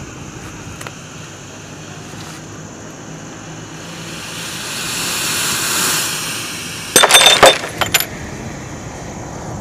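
Match heads burning inside a glass bottle packed with matches, a hissing rush of smoke out of its neck that swells over a couple of seconds and then eases. About seven seconds in, a quick cluster of loud sharp cracks as the glass bottle bursts and shatters.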